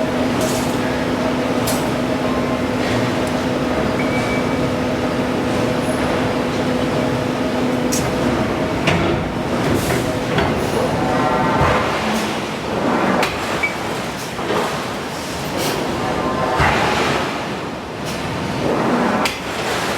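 Forge shop machinery: a steady hum for about the first eight seconds, then irregular knocks and clanks from hammer and steel work.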